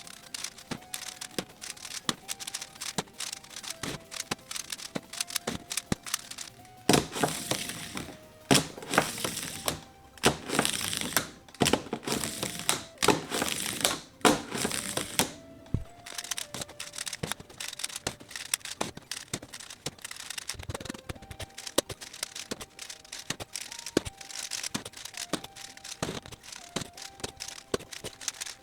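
Background music with a simple stepping melody, over rapid plastic clicks and stretches of crinkling from Rubik's cubes being twisted and handled.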